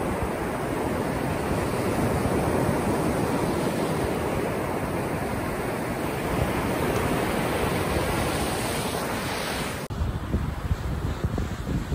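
Ocean surf breaking and washing up the shore as a steady rush of noise. About ten seconds in it cuts off abruptly and gives way to uneven gusts of wind buffeting the microphone.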